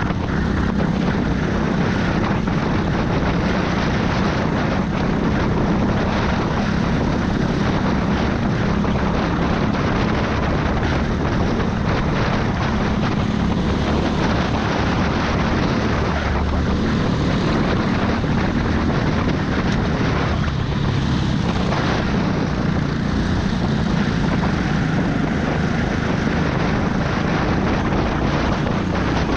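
A racing go-kart's engine drones steadily at speed, heard from on board, with air rushing over the camera microphone.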